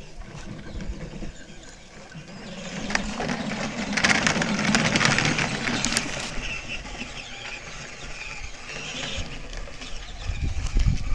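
Battery-powered Power Wheels ride-on ATV driving over dirt and dry leaves: its electric drive motors and gearboxes whining while the plastic tires crunch along. It is loudest in a rough stretch from about three to six seconds in.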